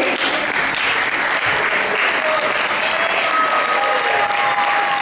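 Audience applauding steadily at the close of a stage performance.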